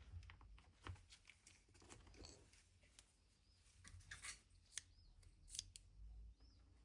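Faint, irregular clicks and light taps of small metal watchmaker's jewel press accessories being handled and set down.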